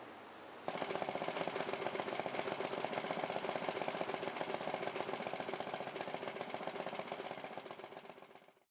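Rototiller's Briggs & Stratton 6.5 hp single-cylinder engine running steadily with a fast, even firing pulse, back in running order after a carburetor replacement. It cuts in abruptly about a second in and fades out near the end.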